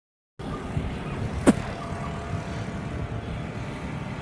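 Steady low rumble of vehicle noise, with one short sharp click about a second and a half in.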